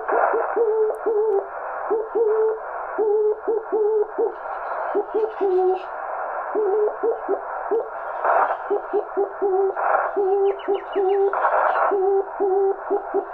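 Morse code from a homebrew single-valve 4-watt CW transmitter, heard through a receiver over band hiss: a low tone keyed in dots and dashes, each element sliding up in pitch as it keys on. This chirp comes from the simple valve transmitter's signal. The hiss swells in several short bursts of static.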